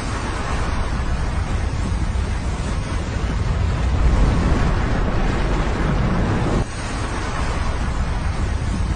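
A flowing river of slushy snow and water, a loud steady rushing rumble mixed with wind on the microphone, which drops suddenly about two-thirds of the way through.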